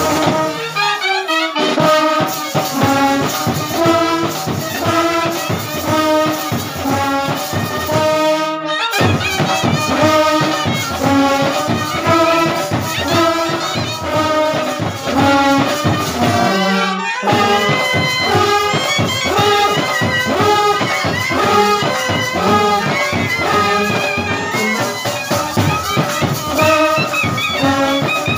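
Uniformed brass band playing a tune: trumpets carry the melody over a steady bass drum beat, with a large brass horn in the low part. The music breaks off for an instant twice, about a third of the way in and just past halfway.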